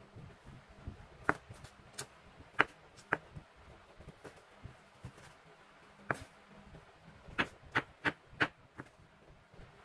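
Kitchen knife chopping tomato on a bamboo cutting board. Sharp knocks of the blade on the wood come every half second or so, then a quicker run of five or six chops near the end.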